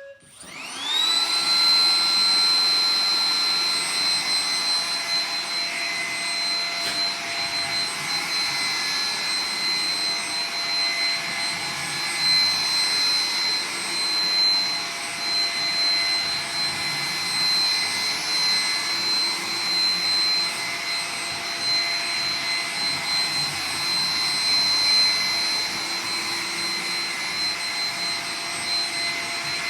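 Roomba 980 robot vacuum starting its cleaning run: the motor spins up about half a second in with a rising whine, then runs steadily with a high whine over a rushing hiss.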